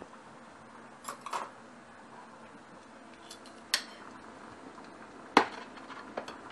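Kitchenware clinking and knocking: a handful of separate sharp clinks of dishes and utensils, a pair about a second in and the loudest about five seconds in, over a low room background.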